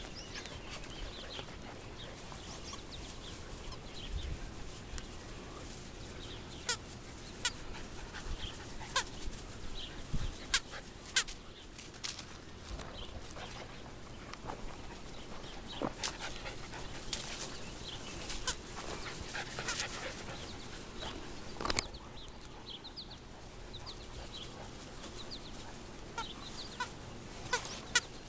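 Rubber squeaky dog toys squeaking as English Springer Spaniel puppies chew and carry them: short, high squeaks at irregular intervals, busiest in the middle stretch.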